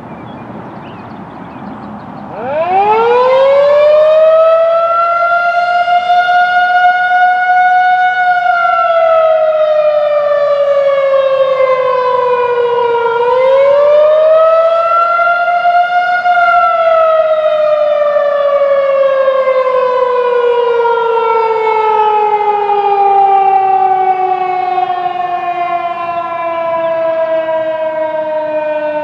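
Federal Signal 2001-130 electromechanical siren sounding its test. It spins up about two seconds in, its pitch climbing quickly to a high wail that holds, slides down, climbs again and then slowly falls. Its rotator is broken, so the loudness stays even instead of sweeping.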